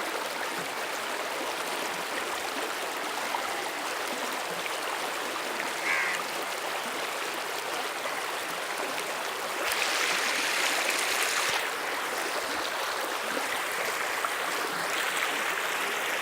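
Floodwater rushing in a steady hiss, swelling louder for a couple of seconds about ten seconds in.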